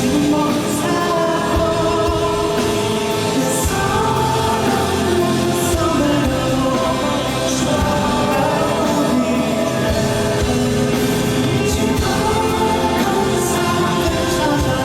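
Live band playing a song, with singing over drums and cymbals.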